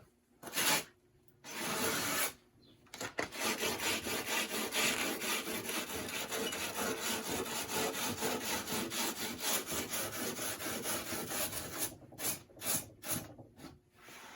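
Sandpaper rubbing back and forth on a rough pallet-wood board: two short passes, then a long run of quick scrubbing strokes, and a few short strokes near the end to smooth the surface.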